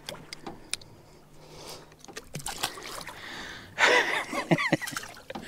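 Water splashing and trickling at the side of a jon boat as a blue catfish is released back over the gunwale. A few sharp handling clicks come near the start, and a brief vocal exclamation from the angler comes about four seconds in.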